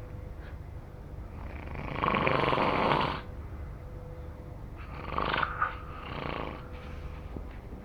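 Snoring: two drawn-out snores about three seconds apart, the first about two seconds in and the louder of the two.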